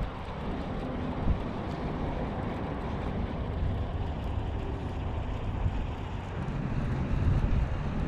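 Wind buffeting the microphone over open water: a steady low rumble that swells in gusts, getting stronger near the end.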